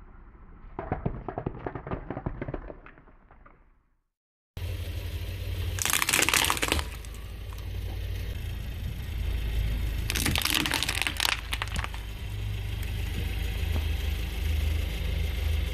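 A car tyre rolling slowly over a row of aluminium drink cans, crunching and crackling them. After a cut, the low rumble of the car returns as the tyre squashes slime-filled squishy toy balls, with two loud bursts of crackle as they give way.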